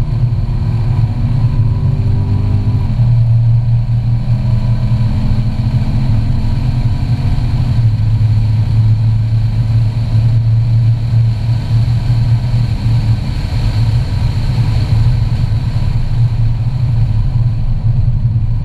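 Chevrolet C7 Corvette Grand Sport's 6.2-litre LT1 V8 accelerating hard on track, heard from inside the cabin over a steady deep drone of exhaust and road noise. The engine note climbs and drops suddenly twice, about three seconds in and again near eight seconds, as the eight-speed automatic shifts up, then holds steady.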